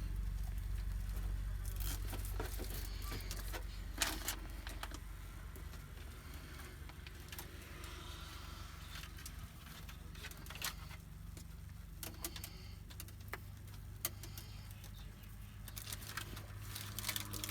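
Hands handling wiring and plastic parts: scattered rustling, light clicks and scraping, with a sharper click about four seconds in, over a steady low hum.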